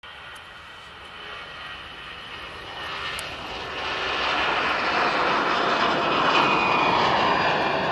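Jet airliner's engines at take-off thrust as it lifts off and climbs out, the sound growing steadily louder over the first four seconds and then holding loud.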